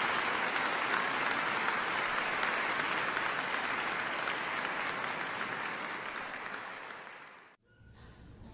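Concert audience applauding, easing slightly before cutting off abruptly near the end.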